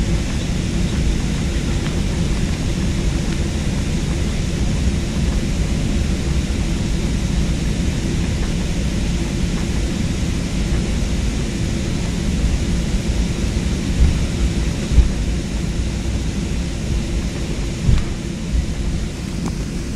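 Jet airliner cabin noise: the steady rumble and hiss of engines and airflow, with a faint steady hum underneath and a few brief knocks in the second half.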